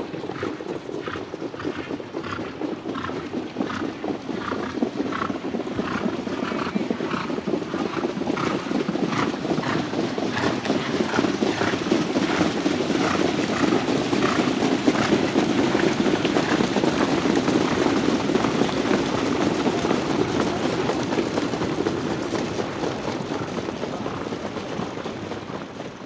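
Trotting horses pulling sulkies in a harness race: regular hoofbeats, about two a second, over a steady rushing noise that swells to its loudest about midway and then fades.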